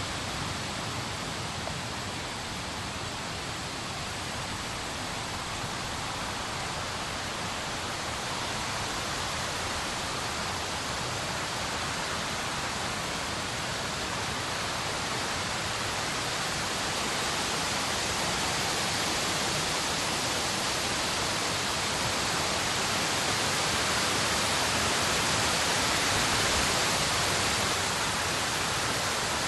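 Steady, even rushing noise with no separate events or pitch. It grows a little louder about two-thirds of the way through and eases back shortly before the end.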